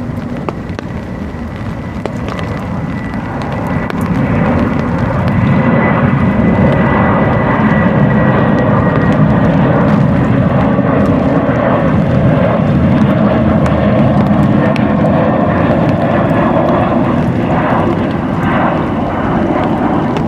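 Airplane flying over, its engine noise swelling about four seconds in and then holding loud and steady, with a thin steady whine over the rumble.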